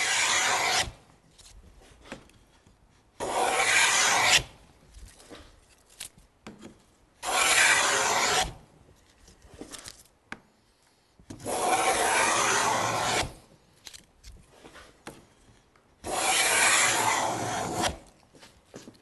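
No. 12 wooden round moulding plane cutting a cove along a board, in five long passes of one to two seconds each, about four seconds apart, each pass taking off a continuous shaving. Small knocks and scuffs come between the passes.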